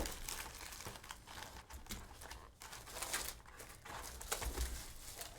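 Faint, irregular crinkling and rustling of foil trading-card pack wrappers and cards being handled.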